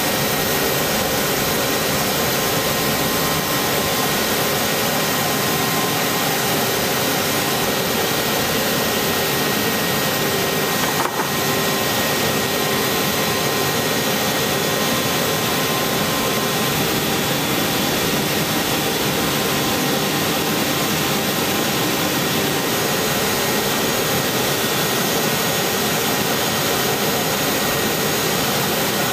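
Steady roar of a helicopter's turbine engine running, with a faint constant whine over it.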